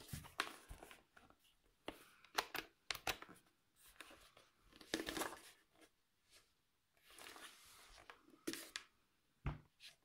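Hands turning over and handling a plastic ultrasonic humidifier base: scattered light knocks, clicks and rustling at irregular intervals.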